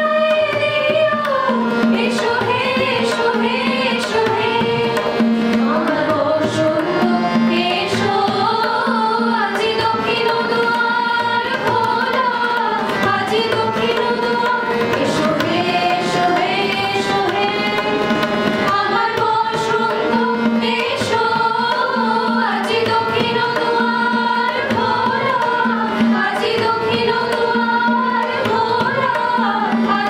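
A group of women singing a song together in unison, accompanied by tabla strokes and a harmonium.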